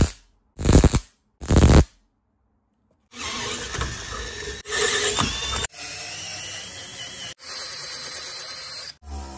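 Three short bursts of arc welding, tacking a steel adapting plate onto a steering shaft, then a cordless drill running in stretches as it drills and taps holes through the plate. A steady electric motor hum starts just before the end.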